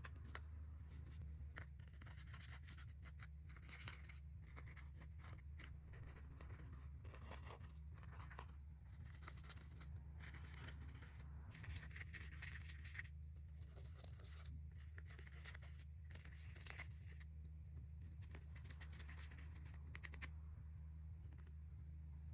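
Pressed makeup being scraped and crushed with a hard tool: faint, dry scratching in quick irregular strokes, busiest in the middle stretch, over a steady low hum.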